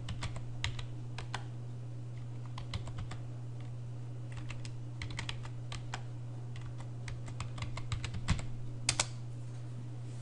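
Typing on a computer keyboard: irregular key clicks as a long command is entered, with two louder key strikes near the end. A steady low hum sits underneath.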